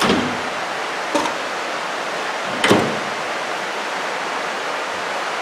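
Microwave oven door being shut: three knocks and clunks within the first three seconds, the third the loudest. Steady hiss of rain underneath.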